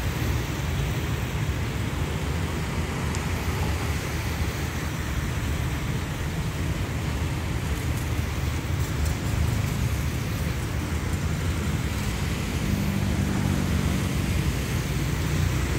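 Steady, loud low rumble of outdoor background noise, with a faint engine hum that comes in about twelve seconds in and fades a few seconds later.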